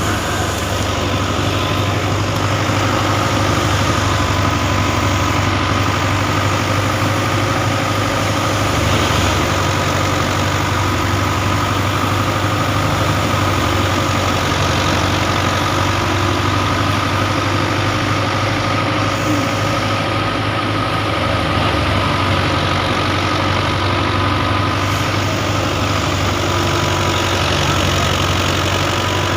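Heavy farm machinery at the wheat harvest running steadily: an unbroken engine drone with a strong low hum and a steady higher whine over it.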